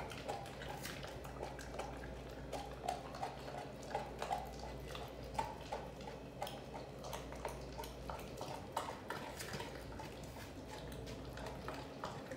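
American bully dog chewing a large turkey leg, working the meat sideways with its molars: an irregular run of short wet clicks and smacks, several a second.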